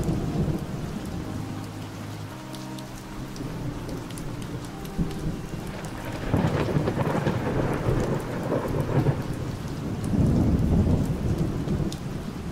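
Thunderstorm sound: steady rain with low rolling thunder that swells about six seconds in and again around ten seconds.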